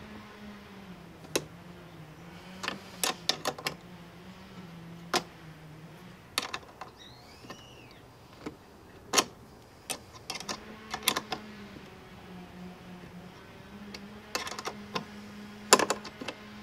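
Hand screwdriver tightening screws in a plastic kayak mount bracket: scattered clicks and knocks of the driver and screws, the sharpest near the end. A steady low hum runs underneath, dropping out for a few seconds in the middle.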